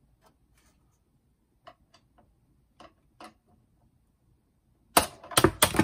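Scattered light clicks and taps of a screwdriver working in a boombox's metal chassis, then near the end a short clatter of four or five sharp metal knocks, the loudest sound, as the tool is handled and put down.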